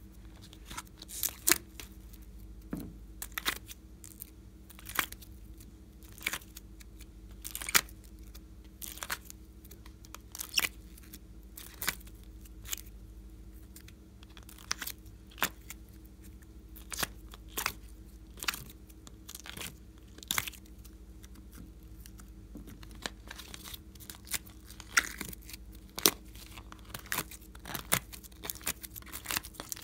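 Heart-shaped pieces of slime being pushed and peeled out of a flexible plastic ice-cube tray: sharp, sticky pops and crackles, irregularly about one every second or two, coming faster near the end.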